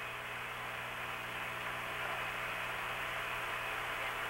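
Steady hiss of radio static with a low mains hum on the open air-to-ground radio channel.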